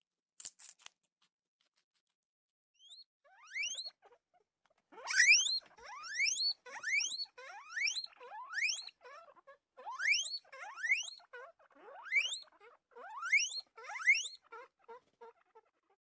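Guinea pig wheeking: more than a dozen high squeals in quick succession, each sweeping upward in pitch, starting a few seconds in. A few soft clicks come just before.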